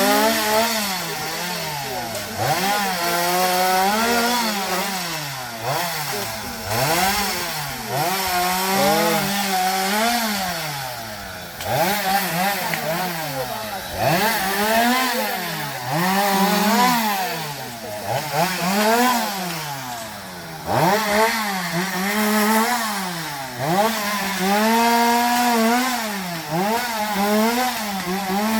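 Two-stroke chainsaw running hard and cutting wood, its engine pitch repeatedly dropping under load and climbing back every second or two.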